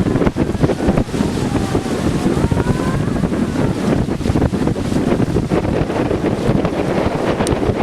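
Heavy tropical rainstorm: a steady, loud downpour with wind buffeting the microphone.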